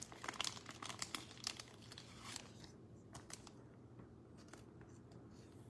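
Thin clear plastic card sleeve crinkling and rustling as a trading card is handled and slid into it. A quick run of small clicks and rustles over the first two and a half seconds, then a few more about three seconds in.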